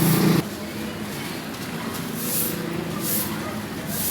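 A vehicle engine's steady low hum on the street stops suddenly about half a second in. A quieter steady background follows, with two short high hissing swishes later on.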